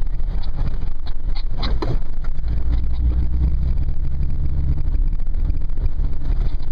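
Toyota FJ Cruiser's 4.0-litre V6 running steadily while crawling a dirt trail, heard from inside the cabin as a low rumble, with a few knocks and rattles about a second and a half in.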